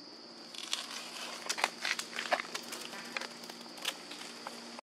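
Irregular crinkling and crackling with sharp clicks, starting about half a second in and busiest in the middle, over a steady high-pitched insect drone. It cuts off suddenly just before the end.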